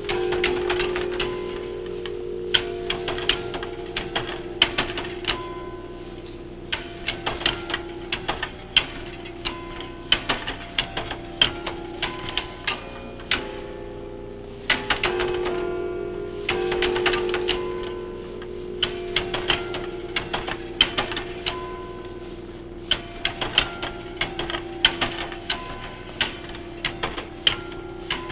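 Bell tower chimes playing a tune of held, ringing notes, with many sharp clicks in quick runs among the notes.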